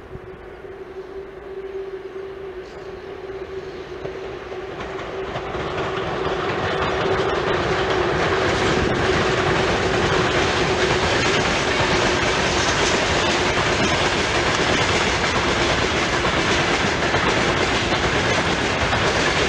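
A VL10 electric locomotive approaches at the head of a freight train of gondola wagons, its noise building over the first several seconds. Then comes the steady clatter of the wagons' wheels rolling past on the rails. A steady hum sounds early and fades as the rolling noise takes over.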